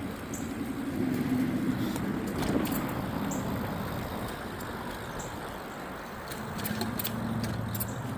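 A bicycle being ridden along a trail: a steady rushing noise of riding, with a few sharp clicks, more of them in the second half.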